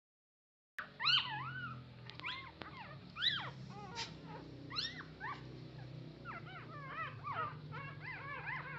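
A litter of young puppies whimpering and squealing for milk from their mother: many short, high-pitched cries that rise and fall, starting just under a second in and overlapping more thickly near the end, over a steady low hum.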